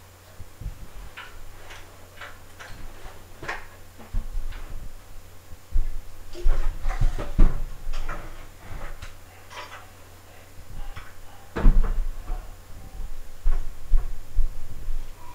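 Irregular knocks, bumps and clatter, with a low handling rumble from the camera being moved; the loudest bumps come about halfway and about three quarters of the way through.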